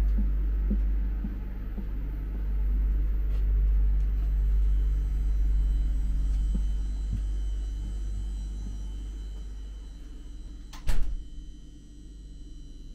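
Steady low rumble inside a PESA Dart ED161 electric multiple unit, fading slowly, with a faint high steady whine from about halfway through. About eleven seconds in, a door shuts with a single loud bang.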